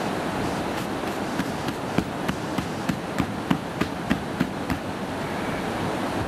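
Steady rush of stream water, with a quick, even run of sharp knocks, about three a second, starting about a second in and thinning out after about five seconds.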